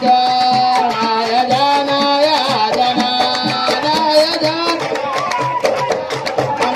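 Arabic song: a voice singing a drawn-out, ornamented melody over a steady hand-drum beat.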